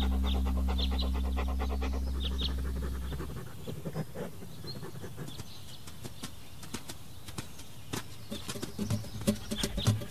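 A held low music chord fades out over the first three seconds, with faint bird chirps. Then comes quieter outdoor ambience with scattered light clicks and taps, and a pug panting and moving about.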